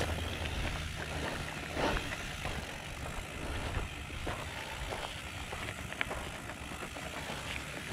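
Single-speed downhill mountain bike moving slowly uphill on a dirt trail: tyres crunching over loose dirt, with a steady run of small clicks and rattles from the bike.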